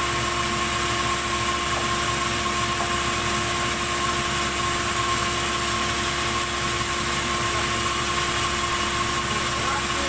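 Sawmill saw and its drive motor running free with a steady whine, the blade not yet in the log.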